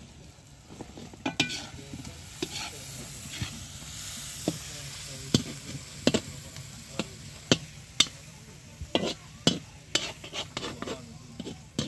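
Irregular sharp clinks and knocks of utensils against cookware, over a faint hiss.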